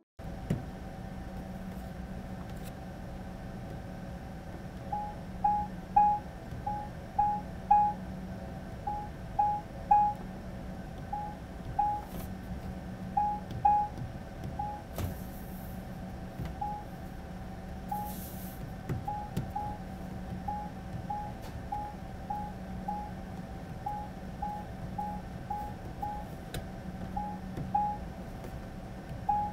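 Whirlpool dryer control panel beeping: a long string of short, high electronic beeps, one with each button press, as the cycle signal volume is stepped through its settings. The beeps are louder in the first half, at the loud setting, and softer later, at medium, over a steady low hum.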